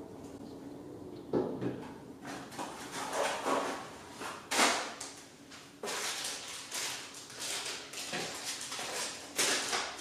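Cardboard packaging of a computer power supply being handled: irregular rustles, scrapes and soft knocks as the box and its inserts are moved about.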